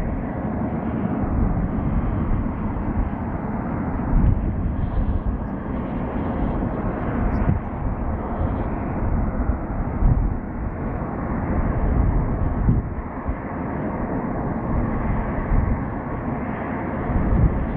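Boeing 737-500 jet airliner coming in to land and rolling out on the runway, its engines a steady, low noise.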